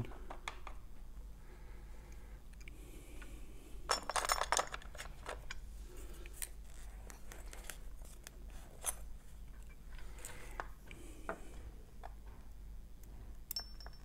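Small metal tools and lock parts clicking and clinking as they are handled on a workbench, with a louder cluster of rattling clicks about four seconds in and scattered single clicks after it.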